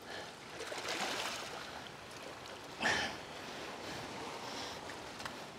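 Small waves washing and fizzing over shoreline rocks, a steady hiss of surf, with one short louder rush of noise about three seconds in.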